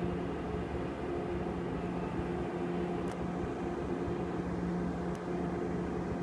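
MBTA commuter train standing at the platform with its diesel locomotive idling, a steady low hum with no change in pitch.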